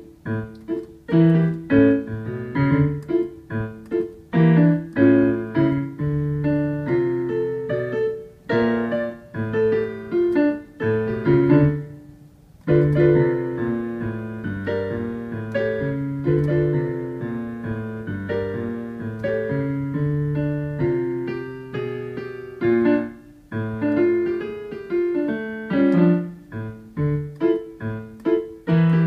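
Digital piano played with both hands: a jazz piece of bass notes and chords under a melody, with a brief break about twelve seconds in.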